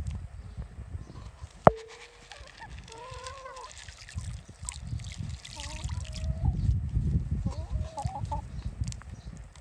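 Hens clucking in short, soft calls while pecking sunflower seeds from a tray of water, with one sharp tap about two seconds in. A low rumble runs underneath, loudest in the second half.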